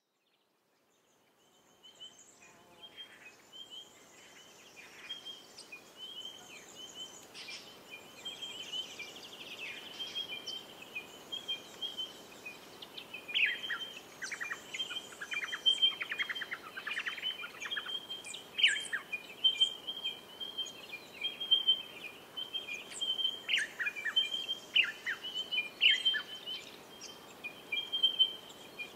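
Birdsong: several birds calling and singing over a steady run of high repeated chirps, fading in over the first two seconds, with louder calls and quick trills from about halfway through.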